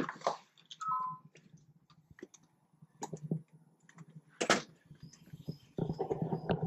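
Scattered clicks and knocks of a front door's knob and latch being handled as the door is opened, with a sharp knock about four and a half seconds in. A rougher, steadier noise starts near the end.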